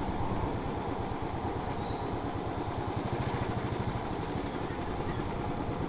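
Motorcycle engine running steadily while the bike is ridden along, with road noise.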